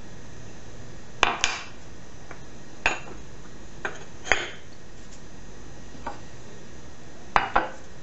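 Sharp clinks and knocks of kitchenware being handled, about eight in all, several in quick pairs, over a steady background hiss.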